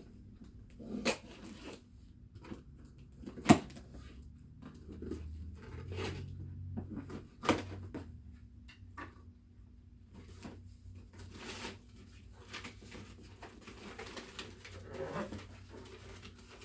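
Cardboard box being opened and unpacked by hand: tearing, rustling and handling noises with three sharp knocks, the loudest about three and a half seconds in.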